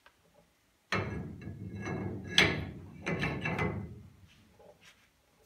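Large brake rotor being worked onto a front wheel hub over the studs: metal knocking and scraping against metal, starting suddenly about a second in, loudest a little past two seconds, then dying away.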